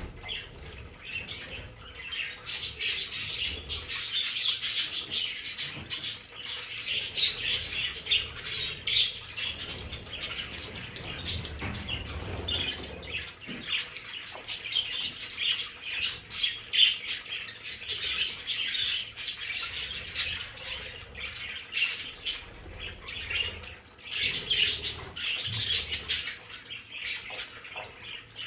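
Several budgerigars chattering together in a continuous, busy stream of chirps, warbles and squawks.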